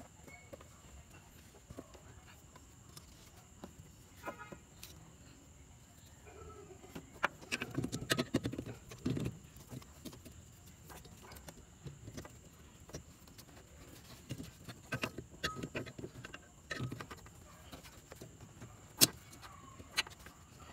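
Hands working the wiring and plastic plug of an H4 LED headlight bulb behind a car's headlight housing: rustling of wires with scattered small plastic clicks, and two sharp clicks near the end.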